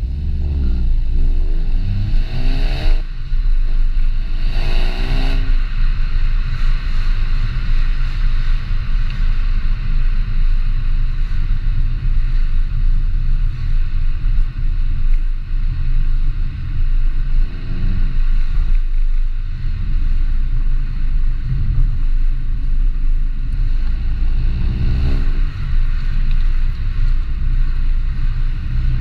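Volkswagen Golf GTI Mk7 facelift's turbocharged 2.0-litre four-cylinder engine accelerating hard, revs rising through two gears with a shift between, then settling to a steady low drone. Shorter bursts of rising revs come again in the second half and near the end.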